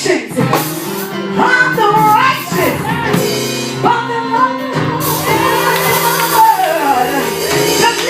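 Gospel praise music with loud singing, shouts and whoops over a steady instrumental backing.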